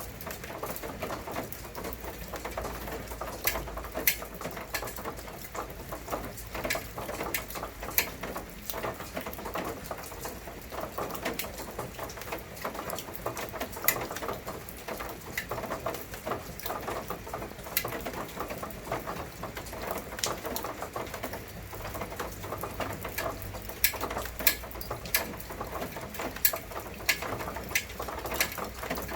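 Rain pattering steadily, with loud individual drops striking close by at irregular intervals, about one every second or two.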